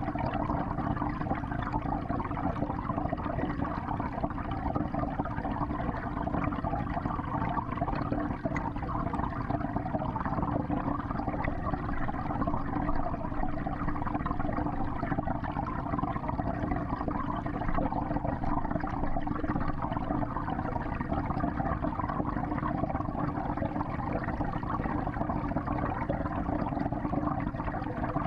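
Steady rush of moving water in a 55-gallon home aquarium, heard from inside the tank, with no breaks or changes in level.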